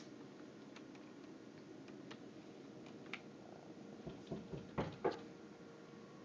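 A few faint clicks, then a cluster of soft thumps and rubbing on the phone's microphone about four to five seconds in as a kitten noses right up against it.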